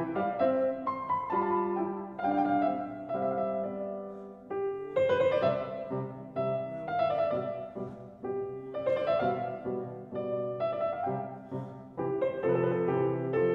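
Background music: a piano playing a slow instrumental piece of struck notes and chords that ring and fade.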